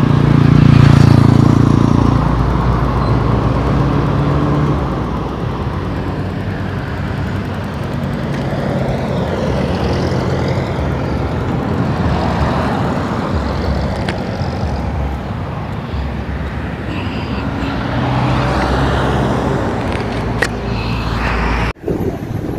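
Road traffic going by: a steady mix of car and truck engines and tyre noise, with one heavy vehicle's engine passing loudest about a second in.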